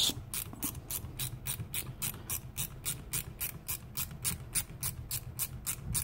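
Ratchet handle fitted with a screwdriver bit, its pawl clicking steadily at about five clicks a second as it is worked back and forth to undo a screw.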